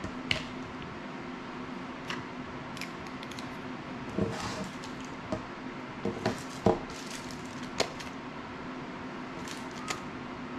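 Small drone parts and tools being handled on a workbench: an irregular scatter of sharp clicks and light knocks of plastic and metal, the loudest a cluster a little past the middle, over a steady low hum.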